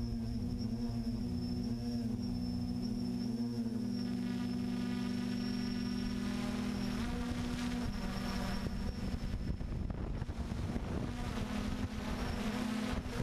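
Quadcopter drone's motors and propellers buzzing, heard from its onboard camera; the pitch dips and recovers several times in the first few seconds, then the hum is roughened by wind rushing over the microphone in the second half.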